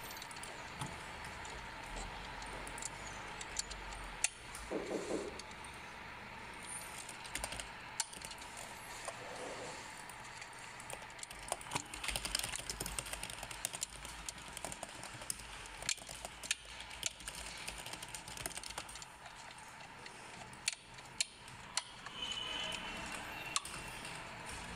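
Irregular small clicks and rattles of plastic parts as the central dashboard air vent of a BMW 5 Series F10 is worked apart with a small screwdriver and handled, over a faint steady hum.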